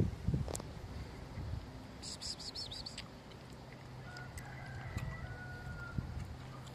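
Birds calling: a quick run of high chirps about two seconds in, then a longer, lower call of held notes from about four to six seconds.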